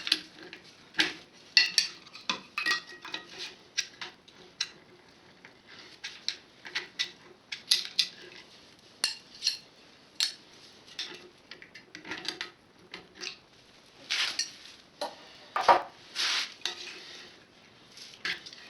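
Irregular metal clinks and scrapes of hand tools working on a GAZ-24 Volga rear axle shaft, prying at the ring and felt seal to get them off, with a couple of longer scrapes near the end.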